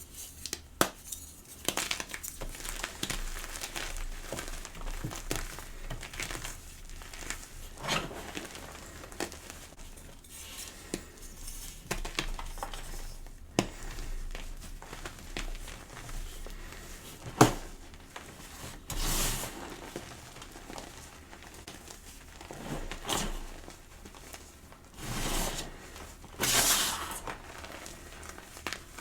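Gym chalk crushed and crumbled by hand. Irregular crunchy crackling runs throughout, broken by sharp snaps and a few longer crunches.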